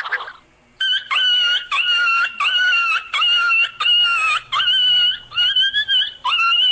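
A dog whining: after a second of quiet, a run of about ten short, high whines, each about half a second long, one after another.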